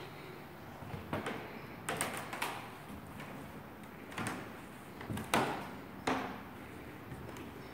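Footsteps on bare wooden floorboards: a handful of irregular knocks about a second apart, the loudest a little past five seconds in.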